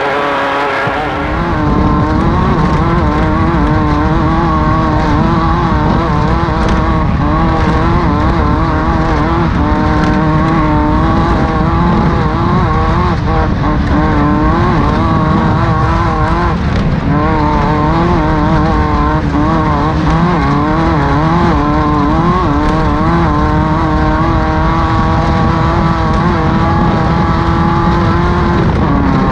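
Air-cooled 1600 cc Volkswagen flat-four of a Class 5-1600 off-road race car running hard at high revs, its pitch wavering up and down continually as the throttle comes on and off.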